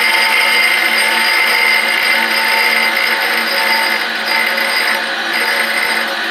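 Rockwell/Delta grinder running steadily, a machine whine with several held tones, while the stepper-driven slide and rotary holder move the end mill under the wheel just before grinding starts.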